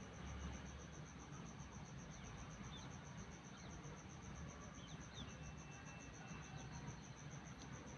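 Cricket chirping in a steady high-pitched pulse, about six chirps a second, over a low rumble, with a few faint short bird chirps in the middle.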